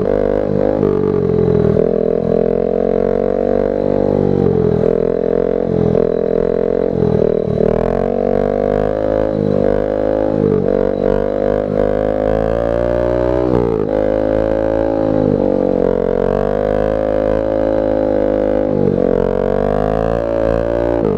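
Honda Grom's 125 cc single-cylinder engine running while riding, its steady drone dropping in pitch and climbing back several times as the rider shifts gears or rolls off the throttle.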